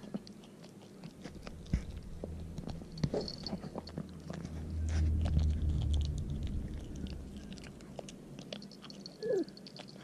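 Chihuahua gnawing and crunching on a chicken foot, with many small irregular crackling bites. A low rumble rises and fades about halfway through.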